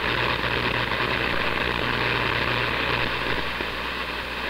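CB radio static: a steady rushing hiss from the receiver's speaker with a low hum underneath, the open band between skip transmissions on 27 MHz.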